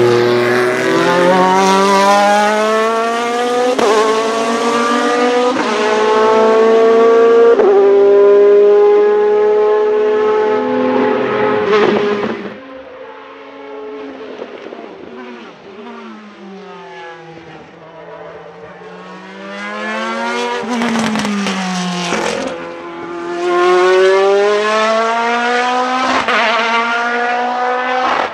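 Ferrari F430 GT2 race car's 4-litre V8 accelerating hard, revs climbing and dropping through a run of quick sequential upshifts about every two seconds. After a quieter stretch with the engine farther off, a race engine swells up again with revs falling, then climbing through more upshifts as it passes.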